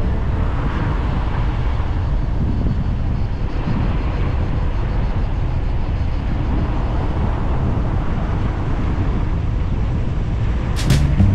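Car driving along, heard from the vehicle: a steady low rumble of road and wind noise with a fainter hiss above it. Music cuts in near the end.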